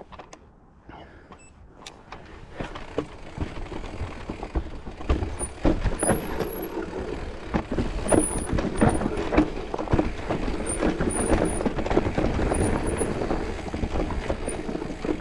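Mountain bike rolling fast down a dirt trail: tyre noise and wind on the microphone, with rapid knocks and rattles of the bike over roots and bumps. It grows louder about two seconds in as the bike picks up speed.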